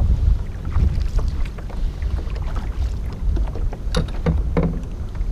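Low, steady rumble of wind on the microphone aboard a small fishing boat, with a couple of short knocks about four seconds in.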